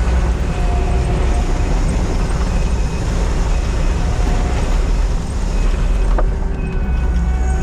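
Crawler dozer's diesel engine running steadily under load while the blade pushes gravel in slow, easy bites, a deep rumble with faint whines that come and go.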